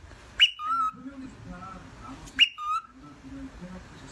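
A whistled call, a sharp rising note followed by a lower held note, repeated three times about two seconds apart, each repeat alike.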